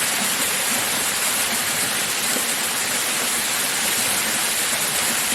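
Waterfall on a mountain brook rushing: a steady, even hiss of falling water, strongest in the high end.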